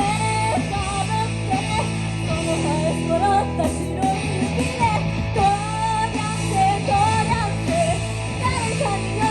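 Live rock band playing a section without words at a steady volume: sustained low bass and guitar notes under a wavering, bending high melody line.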